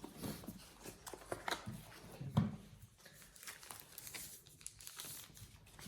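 Rustling and crinkling of plastic packaging as a smartphone is lifted out of its retail box, with light handling clicks and one louder knock about two and a half seconds in.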